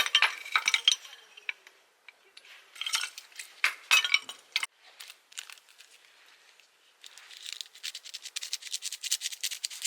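Hard objects clinking and knocking together in two short bursts of handling. Near the end comes a dense run of rapid scratching.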